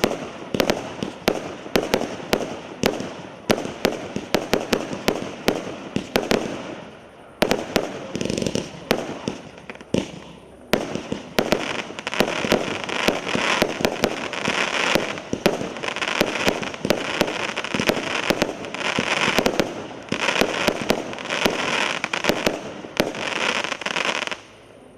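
A 150-shot firework cake (battery) firing: rapid volleys of sharp shots, several a second, then after a couple of short lulls a denser run of many overlapping bursts that stops shortly before the end.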